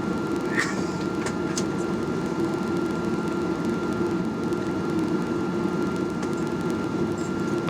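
Steady airliner cabin noise: a droning hum with a thin high tone held above it. A few light clicks come in the first two seconds.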